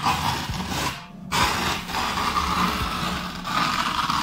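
A palm rubbing over skateboard grip tape, pressing the sheet down onto the deck: a rough sandpaper-like scraping in two long strokes, broken briefly about a second in.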